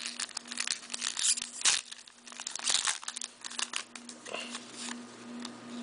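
Plastic wrapper of a hockey card pack crinkling and tearing as it is opened and handled, in irregular sharp crackles, with the cards rustling against each other. A faint steady hum runs underneath.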